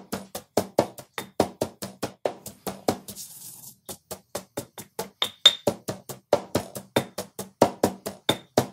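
Pestle pounding in a mortar at about four strokes a second, crushing garlic, salt and toasted cumin seed into a paste, with a short pause about three seconds in.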